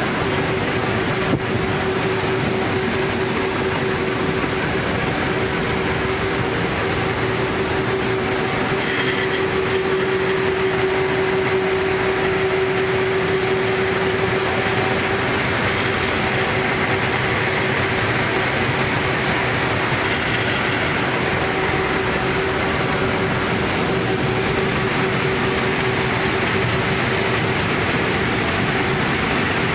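Steady running noise of a moving vehicle with a constant hum, and a single click a little over a second in.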